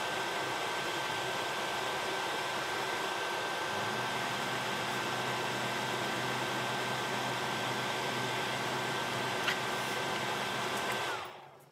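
Metal lathe running with its chuck spinning, a steady high whine over a broad hum; the sound cuts off near the end.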